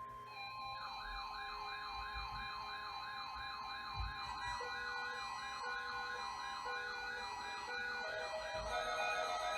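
Several weather alert radios sounding their alarms together for a required weekly test. A siren-like warble repeats about three times a second over a steady tone, and on-off beeps join in partway through.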